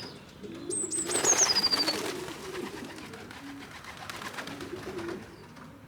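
Pigeons cooing, low and wavering, with a loud flurry of rapid rustling clatter starting about a second in and fading over the next two seconds. A high, falling whistle-like call runs over the start of the flurry.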